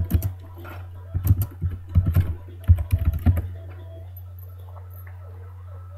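Typing on a computer keyboard: an irregular run of key clicks that stops about three and a half seconds in, over a steady low hum.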